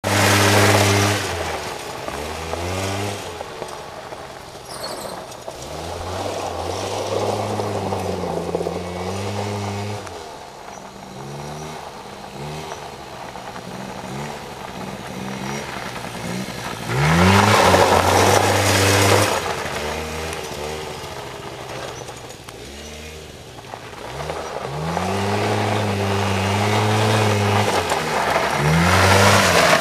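Old 100cc quad bike's engine revving up and dropping back again and again as it is ridden, its pitch rising with each throttle-up and then holding. The loudest surges come right at the start, about halfway through, and over the last few seconds.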